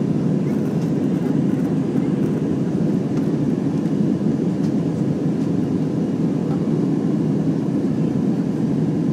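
Jet airliner cabin noise in cruise: the steady low rumble of the engines and airflow heard from inside the cabin at a window seat.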